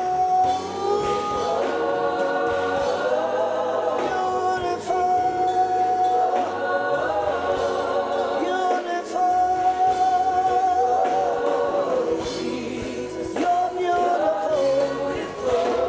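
Gospel choir singing a worship song in harmony with a male lead singer, holding long sustained notes that move together from chord to chord.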